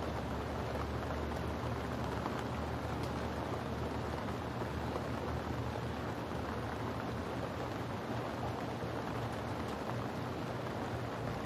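Steady rain falling, an even hiss of drops with a low, steady rumble beneath.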